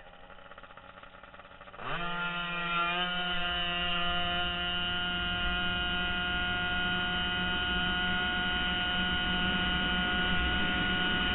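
Racing scooter's engine launching down a drag strip: low running at first, then about two seconds in the throttle opens and the pitch climbs sharply for about a second. It then holds one steady high-pitched buzz at constant revs while the scooter gathers speed.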